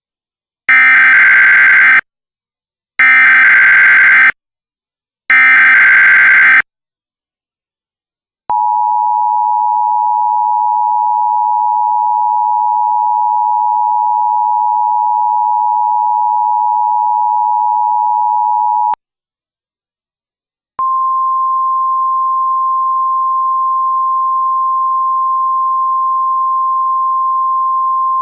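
Emergency Alert System activation for a Child Abduction Emergency: three short screeching bursts of the digital SAME header, then the EAS two-tone attention signal held steady for about ten seconds. After a two-second gap a single, slightly higher steady tone starts and keeps going: the NOAA Weather Radio warning alarm tone.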